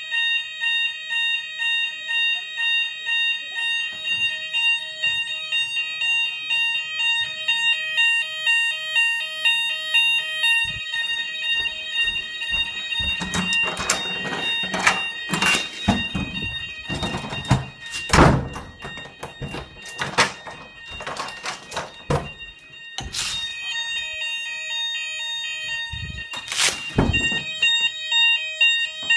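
Hochiki fire alarm sounder sounding a pulsing electronic tone, about three pulses every two seconds, set off for a routine weekly fire alarm test. About halfway through, a run of loud knocks and thumps partly covers the tone before it carries on steadily.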